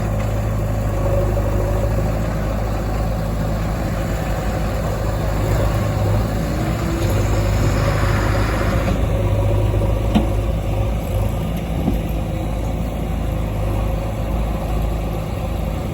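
Heavy diesel engine running steadily with a low hum, a higher hiss over it dropping away about nine seconds in.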